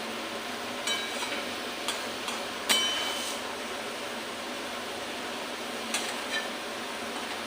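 Metal utensil clinking against a metal cooking pan, about six short ringing knocks, the loudest about three seconds in, over a steady hiss.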